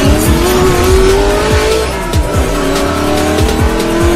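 Music with a heavy beat, mixed with a racing-car engine sound effect revving up. The engine drops about two seconds in and climbs again, like a gear change.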